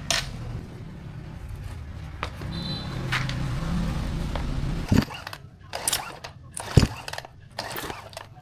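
A low steady rumble, then from about five seconds in a run of sharp knocks and clicks, like hard parts being handled and set down.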